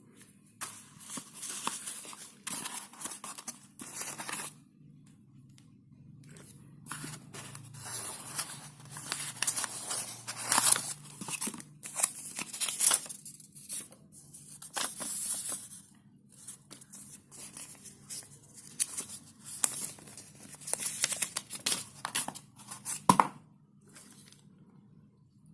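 Packaging being torn open and crinkled by hand: repeated irregular bursts of tearing and rustling, with a sharp click near the end.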